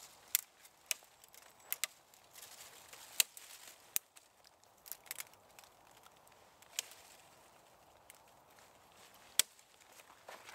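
Small sticks being snapped by hand: a dozen or so sharp, separate cracks at uneven intervals, the loudest about nine seconds in, with light rustling of dry leaf litter in between.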